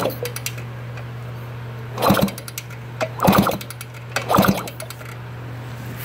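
1971 Kawasaki G4TR's 100 cc two-stroke single kicked over three times about a second apart, with its spark plug out and laid on the cylinder head. Each kick is a short burst of rapid clicks and clatter, and the plug is now sparking since the short in the points was fixed. A steady low hum runs underneath.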